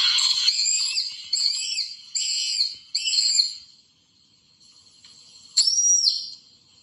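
High-pitched cartoon scream sound effects: a shrill scream trails off, followed by four short shrieks about a second apart, then after a pause one short piercing shriek.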